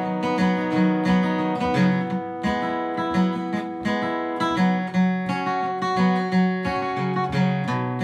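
Acoustic guitar strummed in a steady rhythm, about two strums a second with bass notes under the chords: an instrumental break between verses of a folk song, with no singing.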